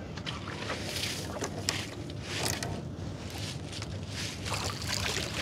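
A wet nylon gill net is hauled by hand over the side of a wooden boat, with water swishing, splashing and dripping off the mesh in several short bursts. A steady low hum runs underneath.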